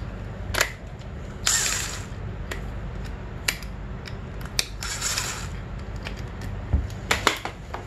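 Cordless drill/driver with a hex bit run in two short bursts to back out the brake caliper's pad pins, with sharp metal clicks between.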